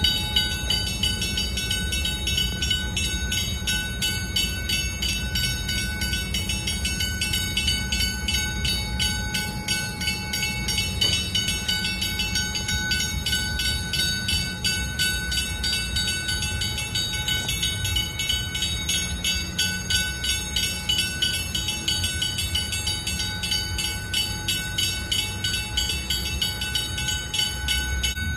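Bridge-gate warning bell at a raised bascule bridge, ringing in fast, steady strokes with a low rumble underneath.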